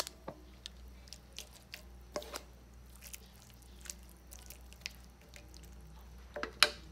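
Wooden spatula stirring glass noodles in broth in a pan: wet dripping and squishing with scattered light clicks of the spatula on the pan, a louder knock twice, the loudest near the end.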